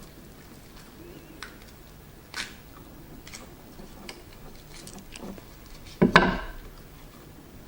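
Light clicks and taps of oyster shells and utensils being handled while eating, with one much louder sudden sound about six seconds in that dies away over half a second.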